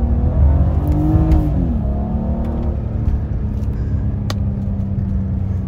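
BMW E46 330Ci's 3.0-litre straight-six accelerating hard, heard from inside the cabin. The engine note rises, drops about one and a half seconds in as the automatic shifts from first to second in manual mode, then holds steady as the car pulls.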